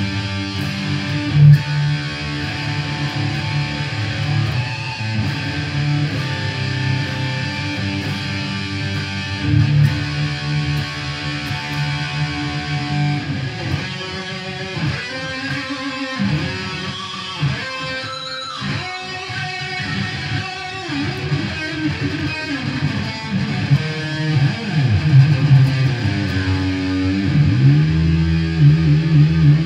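Jackson SL4X Soloist electric guitar noodling: held chords and notes, with fast single-note runs and bends in the middle, and lots of clams (fluffed notes).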